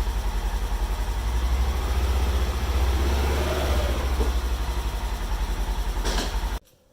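An engine idling steadily, a deep low rumble with an even throb; it cuts in and stops abruptly.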